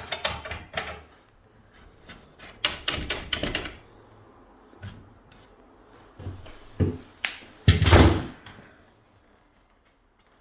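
Handling of a wooden door and its lock-jig and lock hardware: bursts of clicks and rattles, single knocks, and one heavier thud about eight seconds in.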